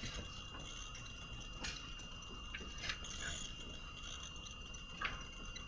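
Low steady background hiss with a few faint, short clicks spread through it.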